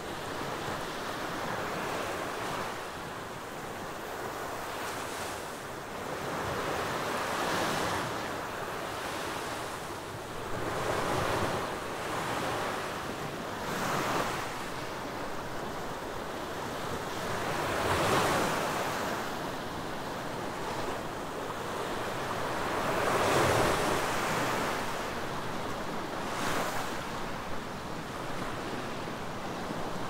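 Small waves breaking and washing up a sandy beach: a steady rush of surf that swells and fades every few seconds.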